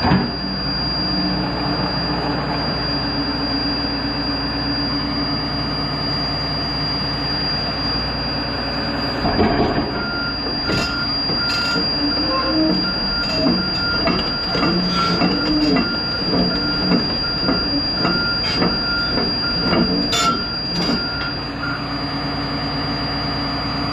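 Diesel excavator engine running steadily. About ten seconds in, squeals and clanks from the steel tracks and undercarriage begin as the machine travels, with a high squeak repeating about every half second.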